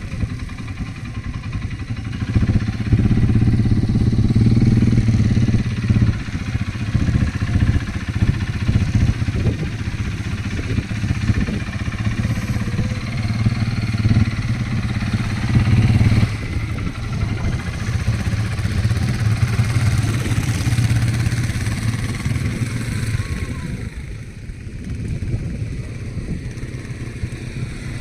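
Quad bike (ATV) engine running under way, a steady low hum that swells and eases as the throttle changes.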